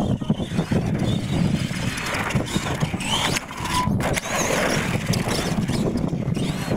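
Radio-controlled monster truck driving over a dirt course: its motor running and its tyres working over loose dirt and grit, a rough, uneven rumble with a brief faint whine about three seconds in.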